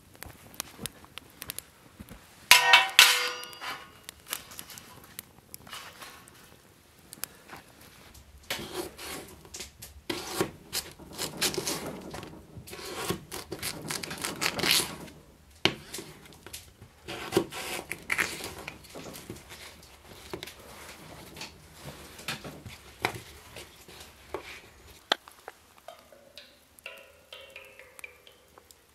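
Camp cooking clatter: a knife cutting potatoes into wedges on a plastic cutting board, among clicks and clinks of cookware. One loud ringing clang comes near the start.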